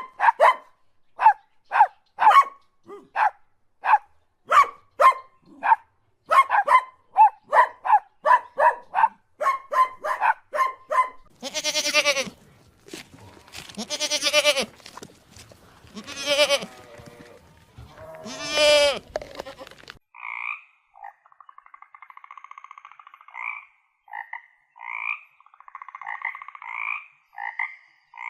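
Animal calls in three runs: short calls repeated about twice a second for the first eleven seconds, then four long drawn-out calls, then a quieter, different call repeated for the last eight seconds.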